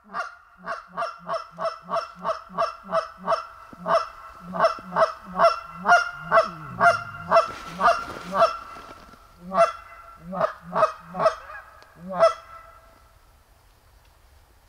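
A hand-blown goose call imitating Canada geese in a fast run of honks, about three a second, each note breaking from a low pitch to a high one. The calling pauses briefly after about eight seconds, picks up again, and stops around twelve seconds in.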